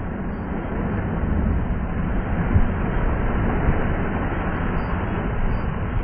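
Lake waves surging and breaking over shoreline boulders, with heavy wind rumble on the microphone. The surge swells about a second in and stays loud.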